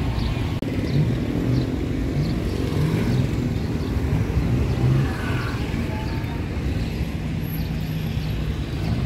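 Motorbike engines passing close by on a street, their pitch rising and falling as they ride past, over steady traffic noise.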